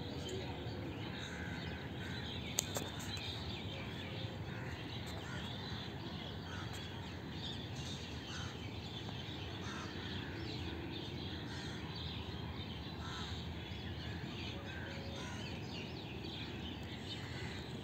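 Crows cawing among many short bird calls scattered throughout, over a steady background hiss, with a single brief click about two and a half seconds in.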